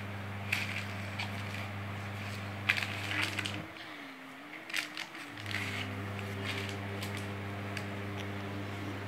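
Parcel packaging crinkling and crackling in short, irregular spells as it is handled and opened, over a steady low hum that drops out for about two seconds midway.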